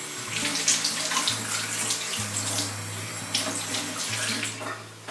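Kitchen tap running into a stainless steel sink while hands are rubbed and rinsed under the stream, the water splashing unevenly. The flow stops near the end.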